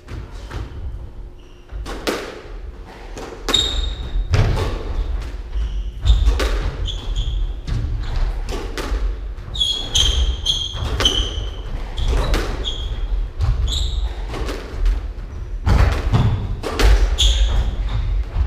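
A squash rally: repeated sharp cracks of the ball off rackets and court walls, thudding footsteps on the wooden floor, and short high squeaks of court shoes as the players turn.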